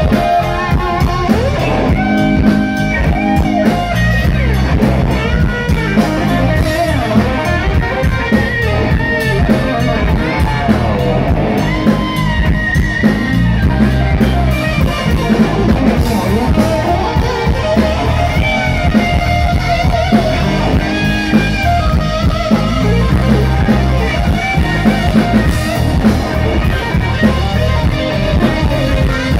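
Live rock band playing loudly with the electric guitar prominent over drum kit and keyboards, in a mostly instrumental passage.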